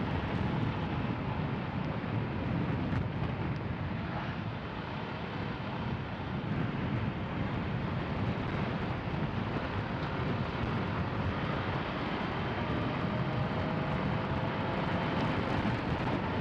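Motorcycle riding at speed: steady wind rush and road noise, with the engine's hum underneath, rising slightly in pitch near the end. The wind is strong.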